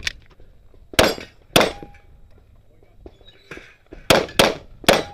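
Pistol shots fired at close range: two about half a second apart, then a pause and three more in quick succession near the end. After the second shot a struck steel target rings briefly with a clear tone.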